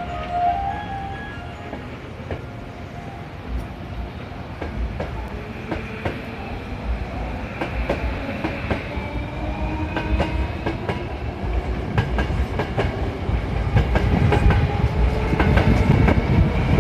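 Hankyu 1000 series electric train pulling out and gathering speed. Its motors give a rising whine, and the wheels click over the rail joints faster and faster, growing louder toward the end.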